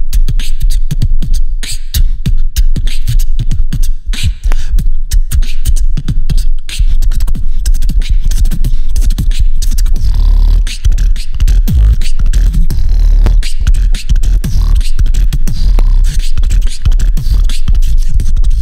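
Beatboxing freestyle into a cupped handheld microphone: a fast, dense run of vocal kicks, snares and clicks over heavy bass, with some held bass tones near the middle.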